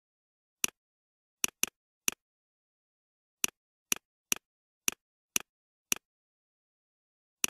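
Computer mouse clicks: about eleven short, sharp clicks at uneven spacing, a few in quick pairs, with dead silence between them.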